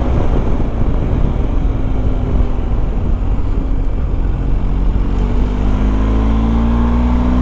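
BMW R 1250 GS boxer-twin engine heard from the rider's seat over wind rush: the bike eases off through a bend, then accelerates from about five seconds in, its bassy note rising steadily in pitch.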